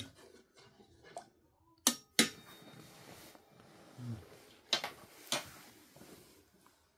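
A spoon clinking against a brass bowl of milk: a few sharp clinks, the loudest two close together about two seconds in with a brief metallic ring, and two more about five seconds in, with quiet stirring between. A short low vocal sound about four seconds in.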